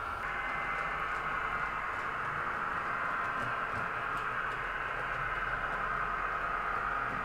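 Model railway diesel locomotive hauling coaches along the track: a steady whirring hiss from the motor and wheels, with faint ticks as the wheels cross rail joints.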